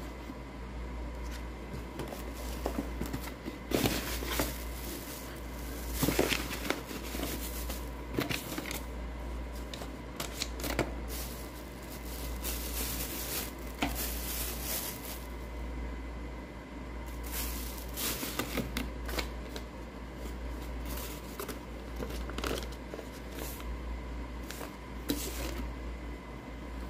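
Clear plastic packaging crinkling and rustling in irregular bursts as wireless headphones are unwrapped and handled, with small knocks of the headset, over a steady low hum.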